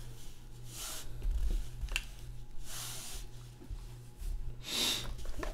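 Quiet handling of a trading card in a hard plastic holder as it is shown and set down on the table. There is a light click about two seconds in and three short, soft, breathy hisses, over a steady low electrical hum.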